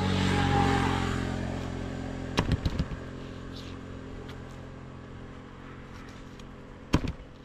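A motor vehicle's engine passing by, loudest just after the start and then fading away. A few sharp knocks come about two and a half seconds in, and a louder single knock near the end.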